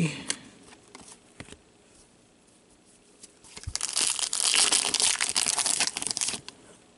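A foil hockey card pack being torn open, its wrapper crackling and crinkling loudly for about three seconds in the second half. A few light clicks come before it.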